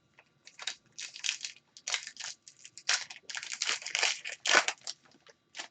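Crinkling and crumpling of plastic trading-card packaging, in irregular bursts for several seconds, as card packs and wrappers are handled.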